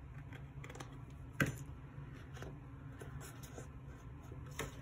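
Small scissors snipping off the edge of a sticker strip on a paper planner page, with light clicks and paper handling. The sharpest snip comes about a second and a half in, another near the end.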